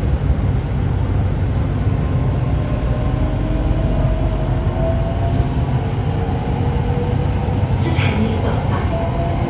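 Inside an SRT Red Line electric commuter train as it moves off along an elevated track: a steady low rumble of the running train, with faint whining tones rising slowly as it picks up speed.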